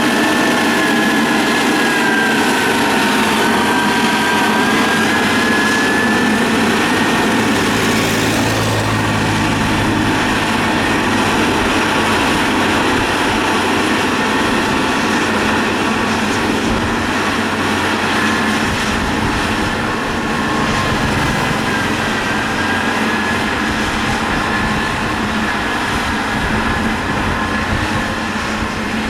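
Motor grader's diesel engine running steadily under load, with a high whine over it that drifts slowly in pitch.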